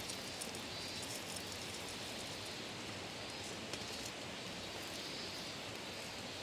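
Steady outdoor background hiss with faint rustling and a few light ticks.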